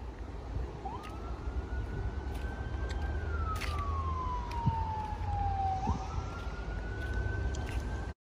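A siren wailing: one clear tone that jumps up, drifts slowly higher, sinks slowly for a few seconds, then jumps up again, over a low rumble. It cuts off abruptly just before the end.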